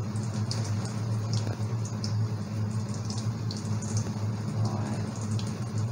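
Cooking water pouring in a thin stream from a tilted pot into a stainless steel sink and splashing, with a trickle running from a tap left partly open. A steady low hum runs underneath.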